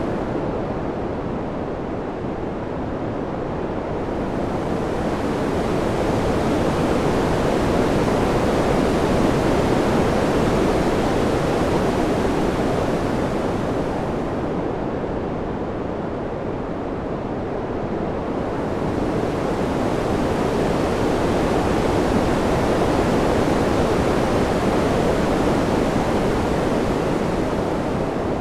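Steady wind noise rising and falling in slow swells about every fourteen seconds, the hiss thinning in the lulls.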